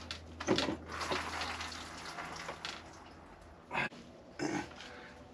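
Shop towel rustling and being handled over an engine bay, with a few short scrapes and knocks. A low steady hum runs underneath for the first few seconds.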